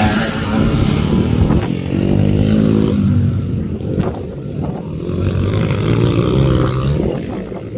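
Small four-stroke single-cylinder pit bike engines running and revving as the bikes ride the track, the pitch rising as they accelerate, about two seconds in and again after five seconds.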